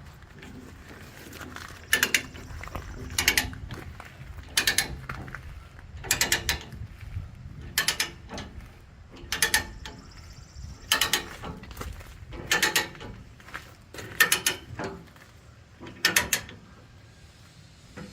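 A hand-lever ratchet on a load chain being worked in steady strokes, each stroke a short burst of pawl clicks, about ten strokes at roughly one every second and a half, drawing the heavy chain tight under load.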